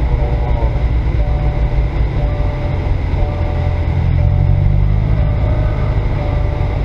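Car engine and road noise heard from inside the cabin while driving slowly, a steady low rumble. A faint short tone repeats about once a second.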